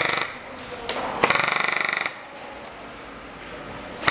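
Airsoft rifle firing on full auto: the tail of a burst right at the start, then a steady burst of about a second at roughly twenty shots a second, and another burst beginning at the very end.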